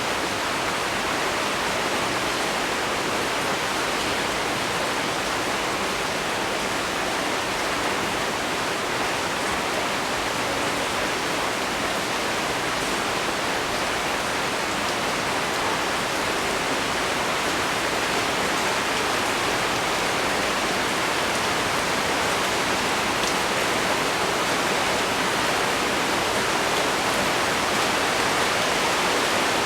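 Heavy rain falling steadily, a dense even hiss of rain on leaves.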